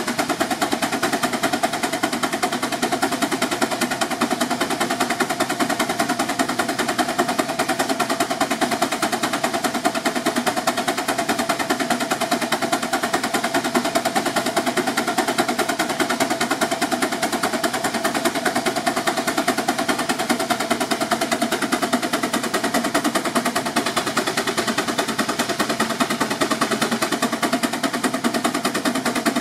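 6 HP Advance steam traction engine working hard under dynamometer load, its exhaust beating in a rapid, steady, even rhythm.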